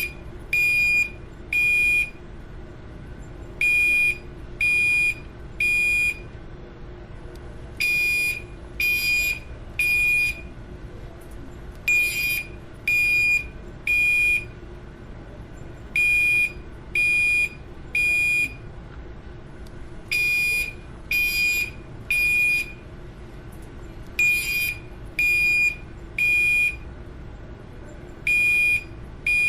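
Building fire alarm sounding the temporal-three evacuation signal: groups of three short, high-pitched beeps about a second apart, each group followed by a short pause, repeating about every four seconds.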